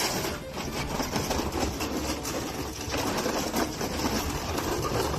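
Demolition machinery running with a fast, steady mechanical clatter over a low engine hum.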